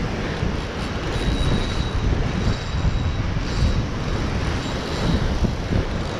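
Heavy surf breaking against a rocky shoreline, with strong wind rushing over the microphone: a loud, steady rushing noise.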